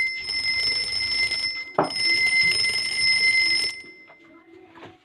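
Homemade wireless doorbell's buzzer sounding a steady high-pitched tone, with a knock a little under two seconds in; the tone cuts off suddenly about three and a half seconds in.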